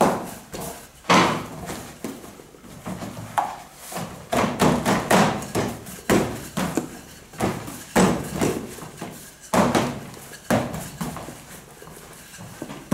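Wooden rolling pins rolling over dough and knocking on a stainless steel worktable, a string of irregular thuds and clacks, several a second, as the dough is rolled out.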